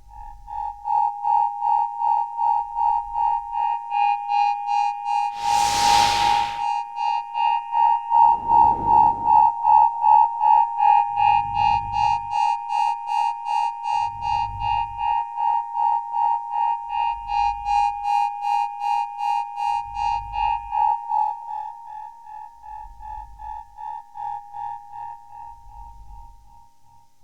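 Electronic synthesizer loop: a high synth tone pulsing about three times a second over a low thud every two to three seconds, with a brief noisy swell about six seconds in. It grows quieter for the last several seconds.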